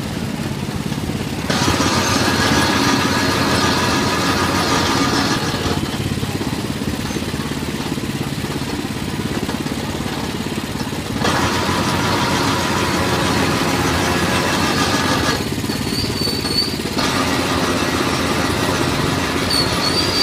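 Motor-driven sugarcane juice press running steadily. It grows louder three times as stalks are crushed through the rollers, each stretch lasting several seconds.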